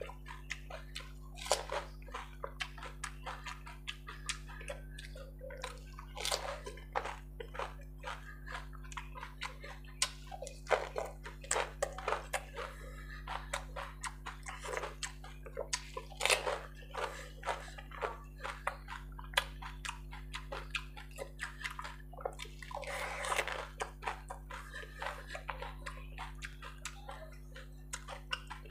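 Close-up eating of golgappa (pani puri): crisp hollow puris cracking and crunching as they are bitten, with chewing, slurping of the spiced water and splashes as puris are dipped into the bowl of pani. Many small crackles throughout, with a few louder bites, over a steady low hum.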